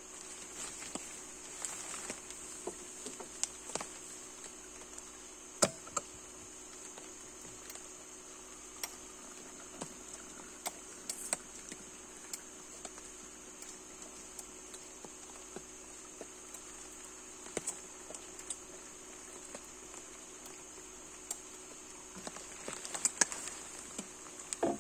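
A steady high-pitched insect drone, with scattered light taps and clicks throughout, one louder click a little over five seconds in.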